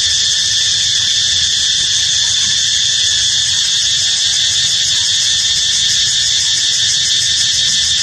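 Insect chorus: a loud, shrill, high-pitched drone that holds perfectly steady without a break.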